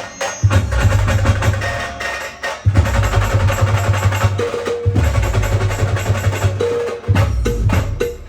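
Brass band playing an instrumental passage driven by loud drums; the heavy beat breaks off briefly and comes back in about every two seconds.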